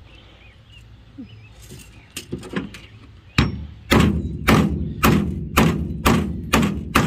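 A claw hammer striking a hollow hole-cutter punch through a step rug into a wood block, cutting a hole for an eyelet. A couple of light taps come first, then from about halfway in, sharp, even blows about twice a second, some seven of them.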